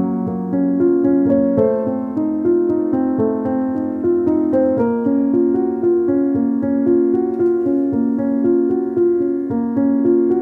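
Background music played on a keyboard: held notes and chords that change every half second or so at an even level.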